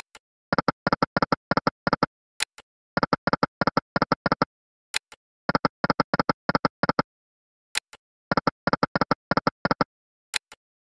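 Slot-machine game sound effects from EGT's "Lucky & Wild": a run of quick pitched ticks as the reels spin and stop, then a single click as the next spin starts, repeated four times. No win jingle sounds, as fits losing spins.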